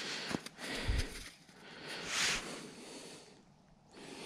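A person breathing and sniffing close to the microphone, in a few short hissing surges, the strongest about two seconds in, with a low bump about a second in.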